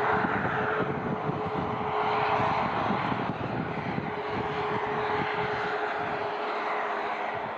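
Boeing 737 MAX 8-200's CFM LEAP-1B turbofan engines running: a broad jet rush with a steady whine through it, slowly fading as the airliner moves away.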